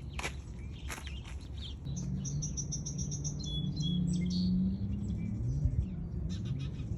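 Small birds chirping and calling, with a fast, high repeated trill about two seconds in. A low wavering hum runs underneath from about two seconds on.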